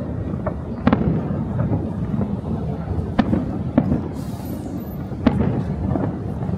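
Fireworks display: several sharp bangs of shells bursting, the loudest about a second in and again around three and five seconds, over a continuous crackling rumble of other bursts.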